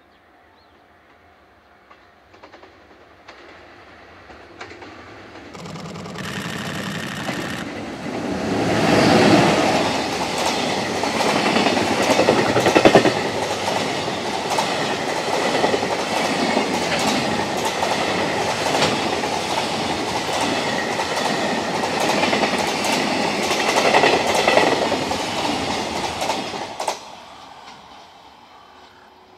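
EH500 electric locomotive hauling a long container freight train, passing at speed. It grows louder as it approaches and is loudest as the locomotive goes by about nine seconds in. Then come a long run of rhythmic wheel clicks over the rail joints as the container wagons pass, and a quick fade near the end as the last wagon clears.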